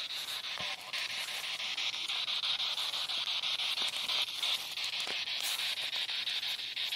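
Spirit box radio scanning through stations: a steady hiss of static chopped by rapid, even clicks as it hops from frequency to frequency, with brief snatches of sound that the investigators caption as a man's voice.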